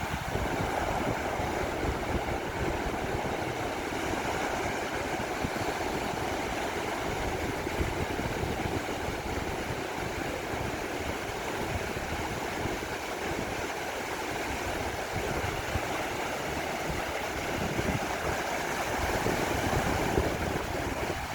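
Sea surf washing onto a beach as a steady rush of noise, with wind rumbling on the microphone.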